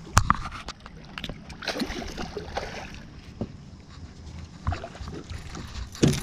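Handling noise from a fishing rod and baitcasting reel in a boat: a sharp click just after the start, then scattered lighter clicks and knocks.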